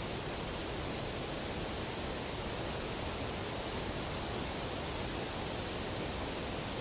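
Steady, even hiss, with no distinct knocks or calls standing out of it.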